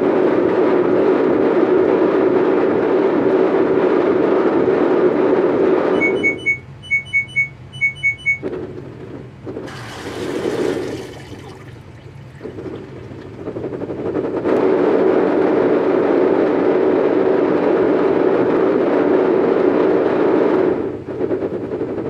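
Top-loading washing machine churning a load of golf balls in water, a loud steady wash-cycle noise. About six seconds in it drops away to a run of short electronic beeps and a quieter stretch with a brief burst of rushing water, then the loud churning picks up again.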